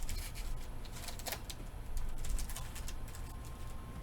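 Crinkling and clicking of trading-card packaging and cards being handled, in short irregular bursts, over a steady low hum.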